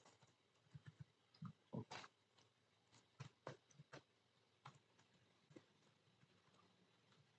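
Faint, irregular clicking of computer keyboard keys being typed, a few keystrokes a second at times.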